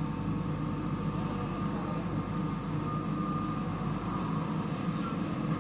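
JCB 3DX backhoe loader's diesel engine running steadily under work.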